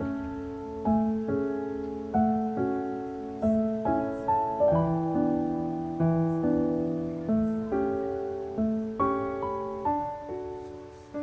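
Gentle piano background music, single notes and chords struck at a slow, even pace, each ringing and fading before the next.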